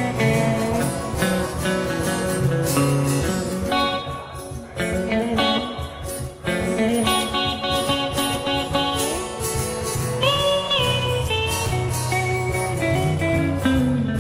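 Live blues played on guitar: an instrumental passage of plucked notes, with a note bent up and back down about ten seconds in.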